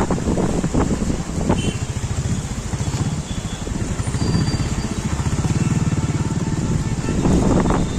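Motorcycle engine running close by, a fast, even putter that swells a little in the middle, over a steady hiss.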